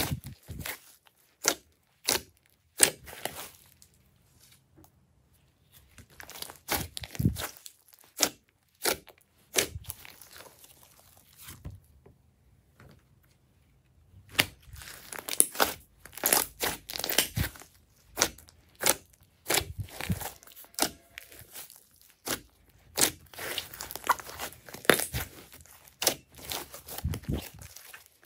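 Glossy slime being squeezed, stretched and kneaded by hand, giving runs of sharp, sticky clicks and pops, with a quieter pause about halfway through.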